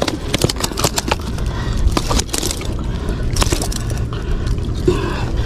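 Irregular sharp clicks, slaps and scrapes of a landed trevally being dragged and handled on concrete, over a steady low rumble.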